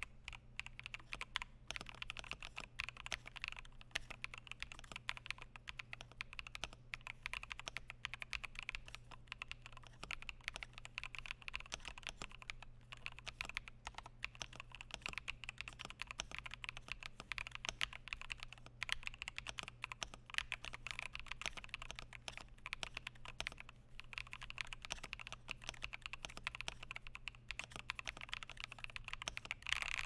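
Continuous fast typing on an Akko 5075S gasket-mounted plastic keyboard with Dangkeebs Strawberry Milk linear switches and 21KB Cadet keycaps. The case is dampened with three layers of medical wrap, which in the owner's view takes away the hollow sound without muting it.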